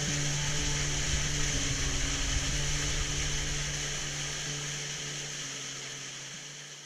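Steady rush of falling water from a waterfall, with a soft low musical drone under it, fading out near the end.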